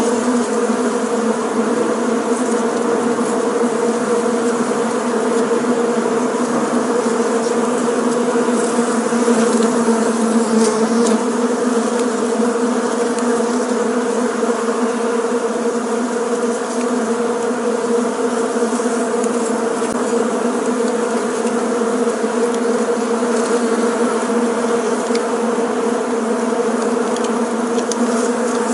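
Bees buzzing in a steady, continuous hum.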